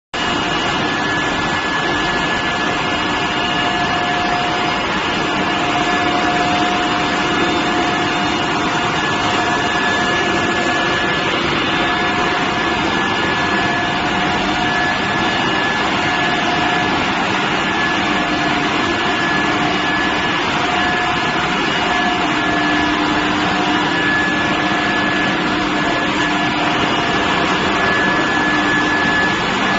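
Steel billet induction heating furnace line running: a steady industrial drone with several high, steady whining tones over a noisy hiss.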